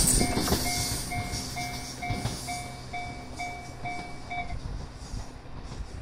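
Level-crossing warning bell ringing a repeated two-tone electronic clang about twice a second, then stopping about four and a half seconds in. Under it, the passing two-car electric train's wheel and running noise fades as it moves away, with a couple of rail knocks early on.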